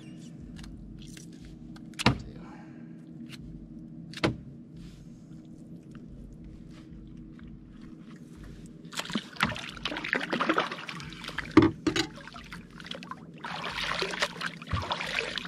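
Water splashing as a freshly bled barracuda is dipped and swished in the water over the side of a small boat, in two spells a few seconds apart, the second the steadier. Two sharp knocks come earlier, over a steady low hum.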